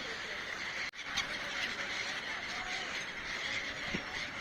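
Birds calling over a steady background chorus, with short curved calls. The sound cuts out for an instant about a second in, then carries on.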